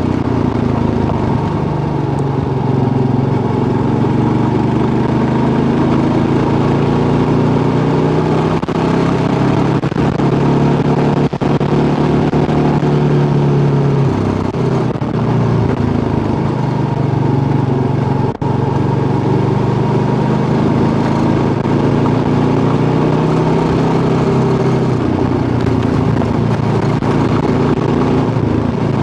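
Kawasaki KLR650's single-cylinder engine running steadily while riding along, its pitch drifting gently up and down, over a steady rush of wind and road noise. The sound dips briefly twice, about a third and about two thirds of the way through.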